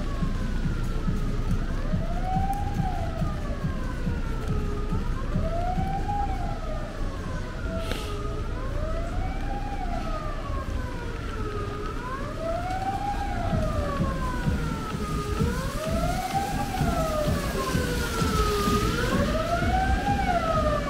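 An emergency vehicle's wailing siren, rising and falling in a slow cycle about every three and a half seconds, over a steady low rumble of street noise. A brief click sounds about eight seconds in.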